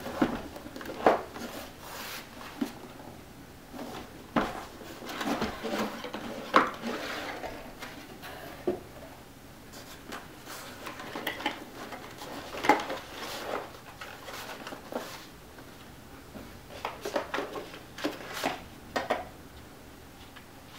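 A cardboard motherboard box being handled on a table: scattered knocks of the box and lid, and rustling and crinkling of the shiny wrapping and paper inserts inside.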